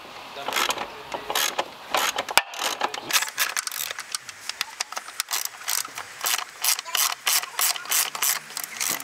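Ratchet driving a T30 Torx bit socket, clicking in quick runs as it removes the screws holding the mass airflow sensor.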